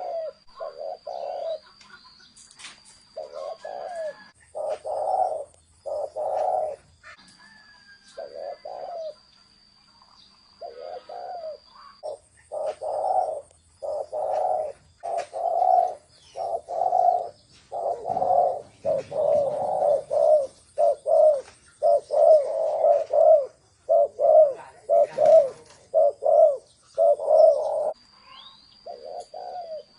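Spotted dove cooing in the deep 'thổ sấm' style, a lure call for drawing wild doves: strings of short low coos repeated in phrases, denser in the second half. A faint high steady tone comes and goes.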